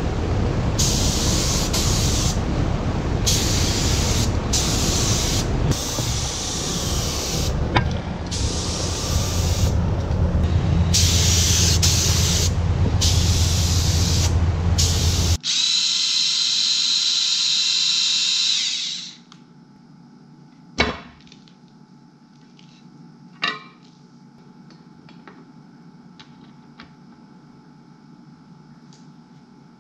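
Compressed-air tool in a workshop: bursts of spraying air switch on and off again and again over a steady low rumble. After a sudden cut about halfway, a few seconds of hiss stop and leave a quiet room with a couple of light knocks.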